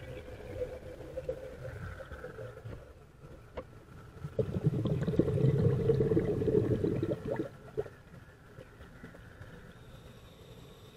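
Scuba diver's exhaled air bubbling out of the regulator underwater: one long exhalation starting a little past four seconds in and lasting about three seconds, over a quieter low rumble.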